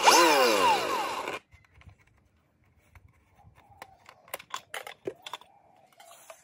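Angle grinder motor driving the blade of a homemade pot mixer, its pitch dropping and jumping back up about once every three-quarters of a second, then cutting off suddenly. A few seconds later come a series of sharp clicks and knocks as the glass pot lid and its wooden strap are handled and lifted off.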